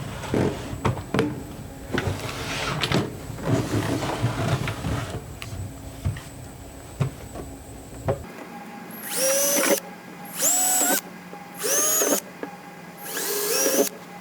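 A power drill runs in four short bursts in the second half, each one spinning up and then holding speed. The first half has irregular knocks and scraping from handling work.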